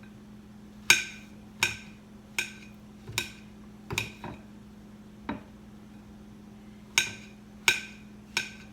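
Kitchen knife chopping mushrooms on a cutting board: single sharp chops, about one every three-quarters of a second, with a pause of over a second past the middle. A steady low hum runs underneath.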